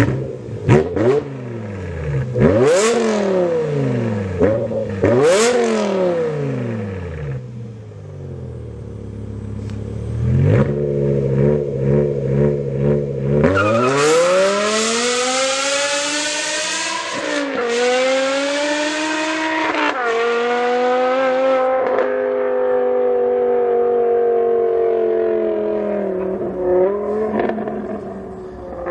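BMW E60 M5's V10 through a GT Haus exhaust: several sharp throttle blips, settling to idle. Then a long acceleration up through the gears with two upshifts, after which it holds steady revs.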